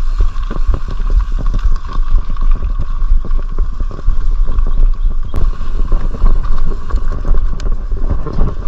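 Mountain bike rattling and knocking over rough, wet trail ground, with a heavy rumble of wind and bumps on the camera's microphone. A steady high-pitched drone runs underneath.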